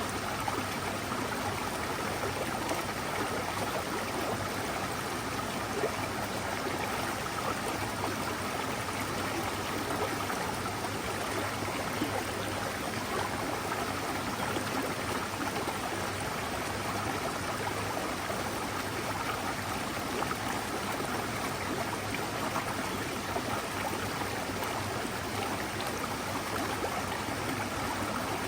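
Forest stream flowing over rocks: a steady rush and babble of running water.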